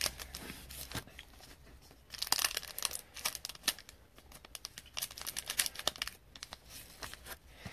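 Foil wrapper of a trading-card pack crinkling and crackling as it is handled and snipped open with scissors, in irregular bursts with small clicks, busiest around two to four seconds in and again near five to six seconds.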